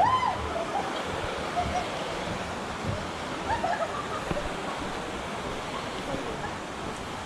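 Steady rush of a mountain stream running over rocks, with a voice trailing off right at the start.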